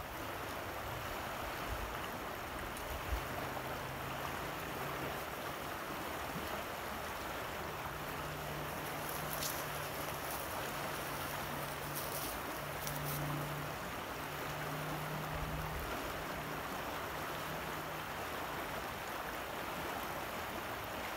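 Fast, rough river water rushing steadily.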